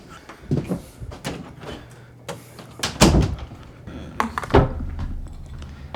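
Scattered knocks and thumps, the loudest about three seconds in.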